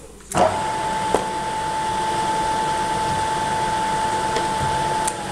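Milling machine spindle switching on about a third of a second in and running with a steady whine, turning a drill bit that is fed into a steel part to drill the hole for a number 10 set screw. A single click sounds about a second in, and the spindle winds down near the end.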